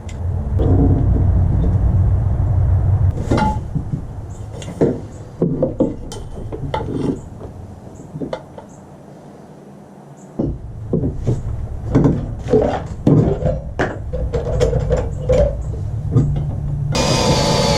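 Irregular knocks, clicks and clatters of objects being handled, over a low rumble. A steadier, humming sound with a few pitched tones sets in near the end.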